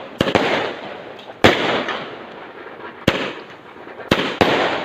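Fireworks going off: about six sharp bangs at uneven intervals, two close pairs among them, each followed by a hiss that fades over about a second.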